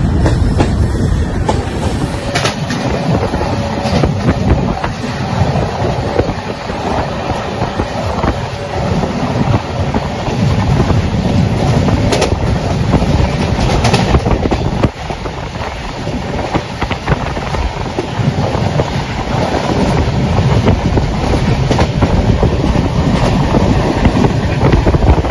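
LHB passenger coaches running at speed, heard at an open door: a steady rumble and rush of wheels on rail, with a few sharp clacks about two and a half, twelve and fourteen seconds in.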